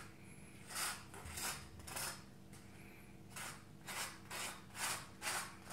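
Table knife spreading butter across a slice of dry toast: a run of short, scratchy scraping strokes, about two a second, with a pause around the middle.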